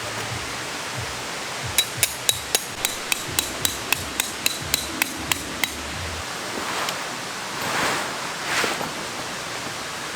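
Hammer driving a metal tent peg: about fifteen ringing metallic blows, roughly four a second, over a steady background rush. Two short swells of rustling follow near the end.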